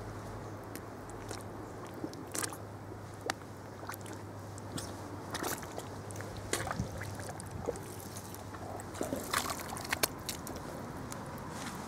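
Canvas plimsolls squelching and splashing as the feet tread in wet mud and puddle water, in irregular steps a second or two apart, a few of them louder sucking squelches.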